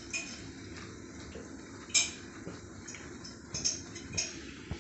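A wire-mesh skimmer clinks and scrapes against a frying pan as it lifts pakoras out of hot oil, over a steady sizzle of deep-frying. The loudest clink comes about two seconds in, and a few more follow near the end.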